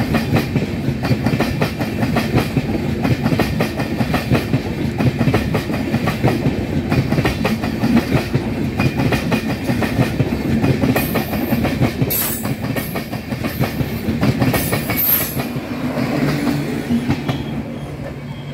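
Indian Railways LHB passenger coaches rolling past at low speed, their wheels clattering steadily over the rail joints, with a few short high-pitched sounds midway. The clatter thins near the end as the last coach goes by, leaving a steady low hum.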